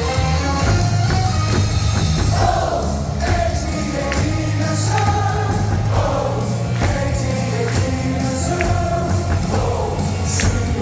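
Stadium loudspeaker music with a steady beat, the crowd singing along in unison to a baseball player's cheer song.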